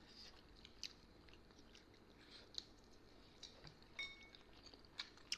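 Faint chewing and scattered soft wet mouth clicks of people eating steamed buffalo-meat momos.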